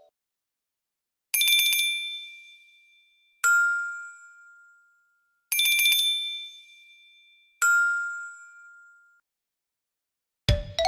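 A Nokia 8 ringtone played as synthesized piano notes: a two-note falling chime, a high note and then a lower one about two seconds later, each ringing out and fading, heard twice. Near the end a different, busier ringtone melody starts.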